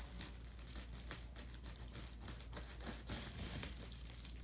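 Faint clicks and rustling as a mailing package is cut open with scissors.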